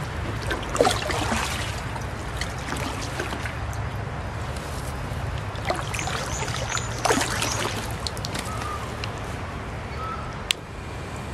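Kayak paddle strokes splashing, with water trickling and sloshing off the paddle blades along the hull.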